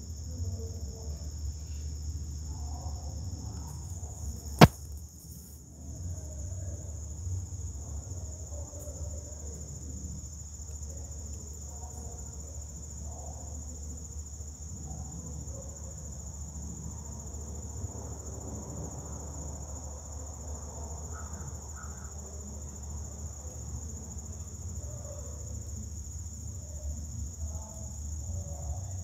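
Steady high-pitched drone of an insect chorus in summer woodland, over a low rumble. A single sharp click stands out a little under five seconds in.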